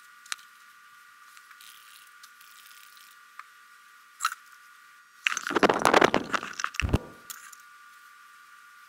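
Handling noise on a kitchen counter: a few light clicks, then about two seconds of rustling and knocking ending in a low thump, as a felt cowboy hat is set onto an upright Thermos bottle.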